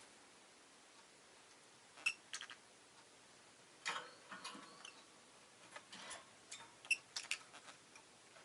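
Rosy-faced lovebird making short, sharp chirps and clicks in scattered clusters, starting about two seconds in.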